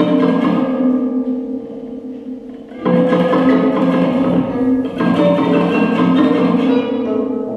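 A bicycle played as a musical sound instrument: overlapping pitched, ringing tones with plucked and percussive strikes. It thins out and quietens about a second and a half in, then comes back in full just before three seconds.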